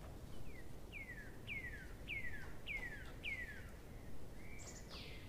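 A bird calling: a series of six falling whistled notes, about one every 0.6 seconds, then near the end a sharper note that sweeps upward.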